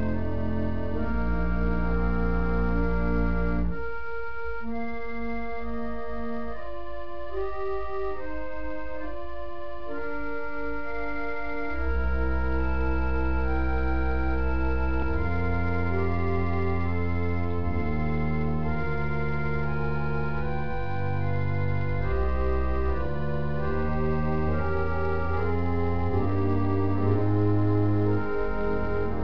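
Organ music in slow, sustained chords. The deep pedal bass drops out about four seconds in, leaving the upper voices alone, and comes back about twelve seconds in under a moving bass line.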